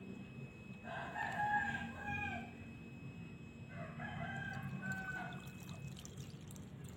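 A rooster crowing twice, each crow about a second and a half long, a little over a second apart.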